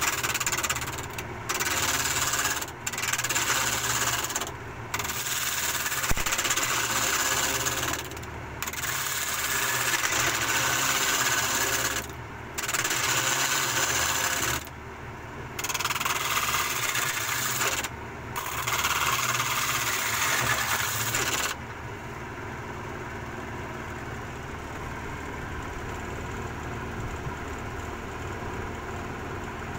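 A woodworking power tool working wood in about eight repeated passes of one to three seconds each, with short breaks between them, giving way about two-thirds of the way through to a steadier, quieter machine hum.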